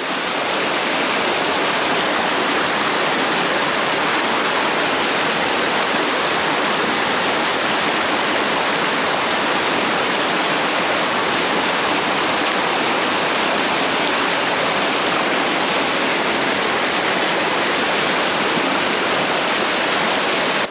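Mountain stream water rushing, a steady, loud wash of flowing water.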